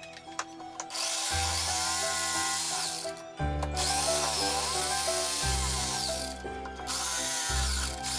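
Power drill running in three bursts of two to three seconds each, its motor pitch rising and falling with the trigger, over background music.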